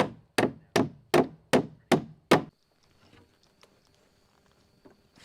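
Hammer driving a nail into a wooden board: seven sharp, evenly paced blows, about two and a half a second, then the hammering stops.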